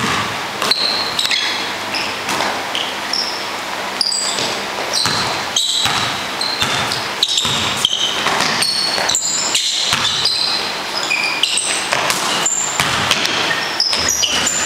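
Basketball bouncing on a gym floor and sneakers squeaking as players run and cut, many short sharp squeaks and thuds throughout, in a reverberant hall.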